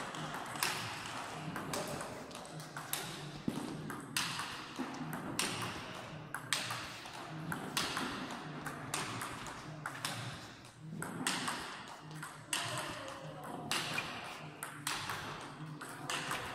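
Table tennis ball struck again and again with a racket and bouncing on the table in a fast forehand drill: a steady rhythm of sharp clicks, more than one a second.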